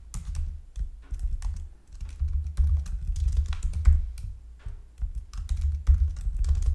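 Typing on a computer keyboard: irregular runs of keystroke clicks with dull thumps, broken by short pauses.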